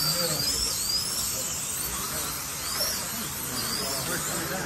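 Slot cars racing on a large track: the high whine of their small electric motors rises and falls as each car passes, several passes in quick succession at first, then more spaced out, over a steady hiss of room noise.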